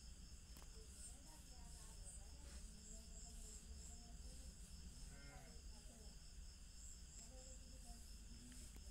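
Near silence: faint room tone with a steady high-pitched insect chirring and a low hum, plus a faint voice-like sound about five seconds in.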